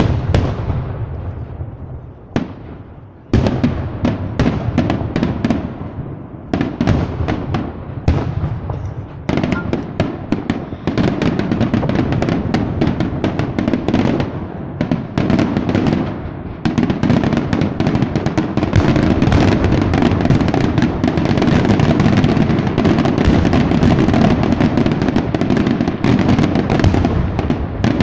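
Aerial firework shells bursting. Separate bangs with echoing tails come first, then they come faster and thicken into a dense, continuous barrage of bangs and crackling for the last ten seconds.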